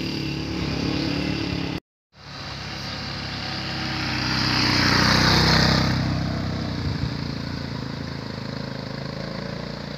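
Motorcycle engines running. After a short cut to silence just before two seconds in, one motorcycle approaches and passes close by: its sound swells to a peak about halfway through, then fades, leaving the steady sound of motorcycles riding on.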